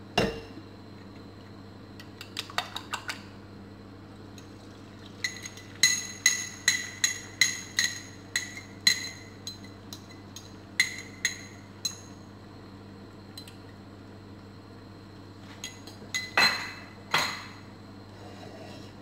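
Metal spoon tapping and scraping against a small glass bowl, knocking beaten egg out into the frying pan, each clink ringing briefly. The clinks come in clusters: a few early, a quick run of about a dozen in the middle, and a few louder ones near the end.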